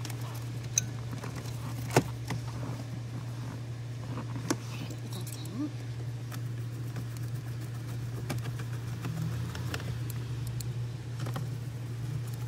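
Plastic dashboard trim around a MINI Cooper's round centre display being handled and pressed back into place: scattered clicks and light knocks, the sharpest about two seconds in, over a steady low hum.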